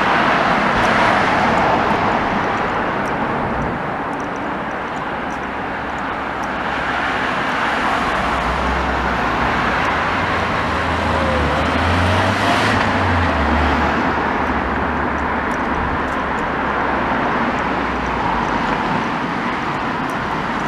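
Road traffic: cars and vans passing one after another, their tyre and engine noise swelling and fading as each goes by. A low rumble runs through the middle stretch.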